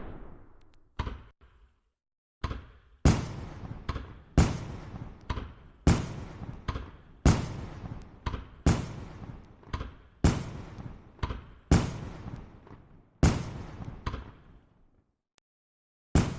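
Firework bursts going off one after another: a sharp bang about every second and a half, each fading away with a crackling tail, with smaller pops in between. There is a short pause near the end, then one more bang.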